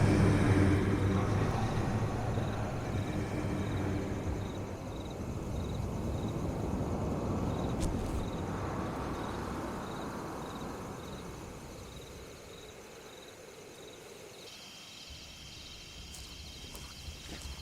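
Film sound-design ambience. A low rumbling drone fades over the first few seconds, and a second swell of noise rises and falls a few seconds later. It then settles into quiet outdoor ambience with a steady, evenly repeating high chirping, like insects at night.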